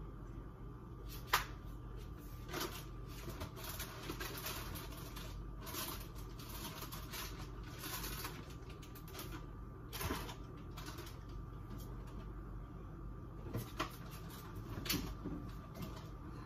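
Kitchen handling sounds: a few sharp knocks and clicks as items and containers are set down or opened, with rustling of packaging in between, over a faint steady hum.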